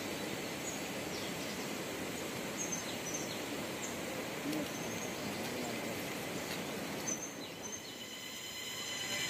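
Steady outdoor ambience: an even background hiss with a few brief, high bird chirps scattered through.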